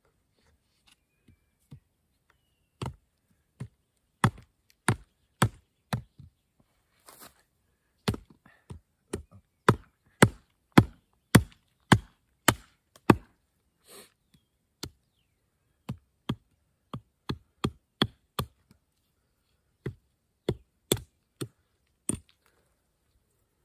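Hatchet chopping into a wooden stick: a run of sharp wooden knocks, about one or two a second at an uneven pace, loudest in the middle.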